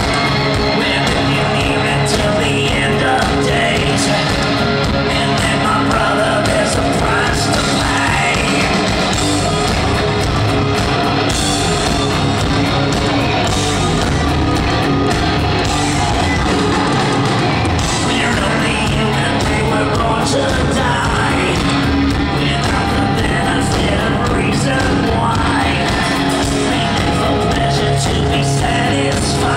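Hard rock band playing live and loud, with the lead singer singing into the microphone over guitars and drums, heard from within the audience in a large hall.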